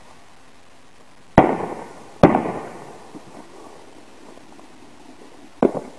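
Small ground fireworks going off on pavement: two loud, sharp bangs less than a second apart about a second and a half in, each fading over about half a second, then a smaller bang near the end.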